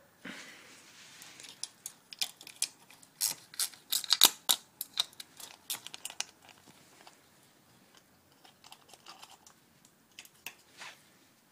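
Metal hand tools and engine parts being handled: irregular sharp clicks and clinks, densest a couple of seconds in, then sparser.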